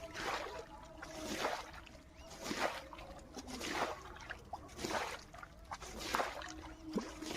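Water sloshing and splashing in a steady rhythm, about one swish every second, as though something is moved through shallow river water stroke by stroke.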